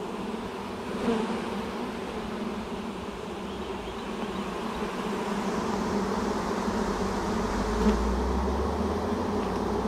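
A mass of honeybees buzzing in a steady, pitched hum that grows slightly louder, with a brief low rumble about eight seconds in.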